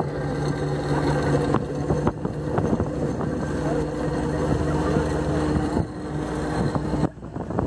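Motorboat engine running steadily as the boat tows a parasail, a constant low hum over rushing water and air noise. The sound drops away briefly near the end.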